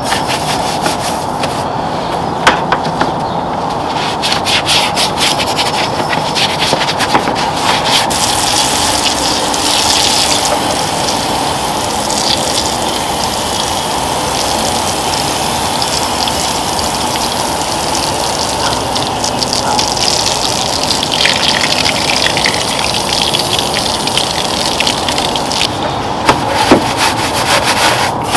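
Bristle brush scrubbing over engine-bay plastics in quick strokes, then from about eight seconds in a long steady hiss of cleaning foam being sprayed over the engine bay; scrubbing starts again near the end.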